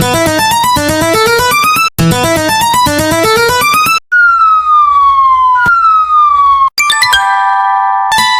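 Cartoon soundtrack music: a fast run of bright keyboard-like notes for about four seconds, then a single tone sliding downward twice like a siren, then a steady held chord near the end.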